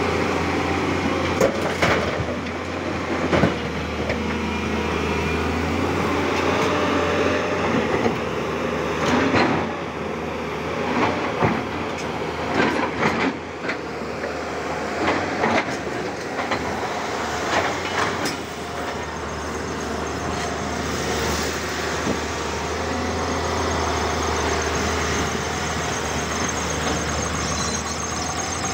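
Tata Hitachi excavator's diesel engine running steadily under load while broken rock clatters and thuds as the bucket digs and drops stone, the knocks coming irregularly through roughly the first two-thirds. Later the engine hum carries on more evenly, with a thin steady high tone over it.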